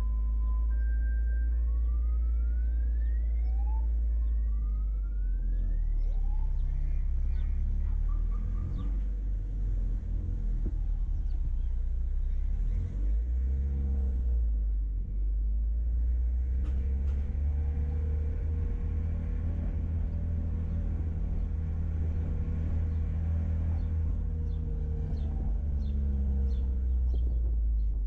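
A vehicle driving along a road: a steady low engine and road rumble with a pitched engine hum. A few short rising whistle-like tones sound in the first few seconds.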